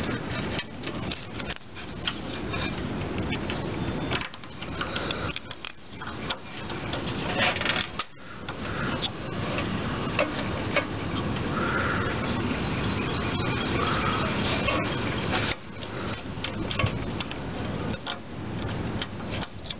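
Hands handling a plastic brake-pedal safety switch and its wiring connector up close: rustling and scraping with scattered small clicks and knocks.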